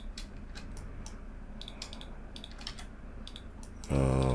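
Scattered clicks of a computer keyboard and mouse while working in 3D software, over a low steady hum. A man's voice sounds briefly near the end.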